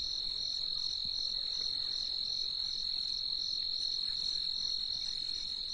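Insects trilling: one steady high-pitched trill, with a fainter chirp pulsing above it about twice a second.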